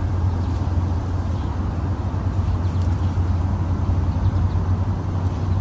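Loud, steady low rumble.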